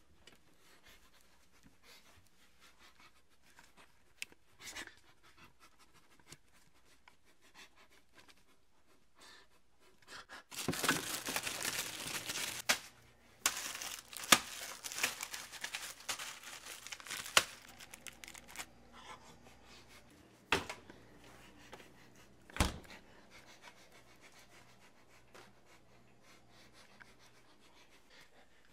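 Close handling noise on the microphone: a loud stretch of rustling, crinkling and scraping about a third of the way in, broken by sharp knocks. Two more sharp knocks follow some seconds later, with quiet room tone between.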